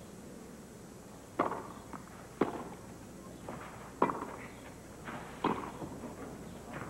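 Tennis rally on a clay court: the ball is struck hard by rackets four times, each hit a second or so after the last, with fainter knocks between.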